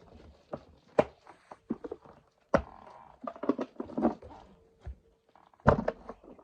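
Knocks, clicks and rustling from a Henry vacuum cleaner being handled as its dust bag is changed, with sharp knocks about a second in, midway and near the end.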